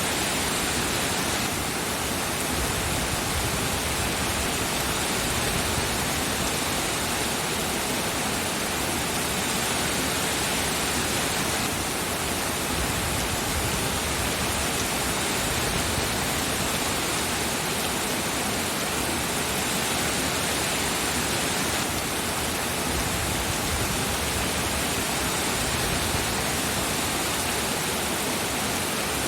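Rain falling in a steady, even hiss, with no separate drops or thunder standing out.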